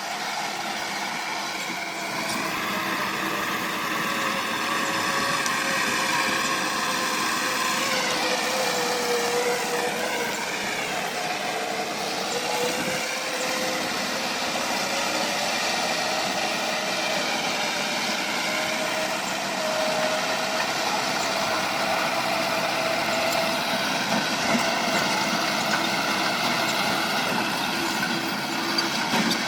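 Diesel engine of heavy earthmoving equipment running steadily under load, its pitch slowly rising and falling as the revs change.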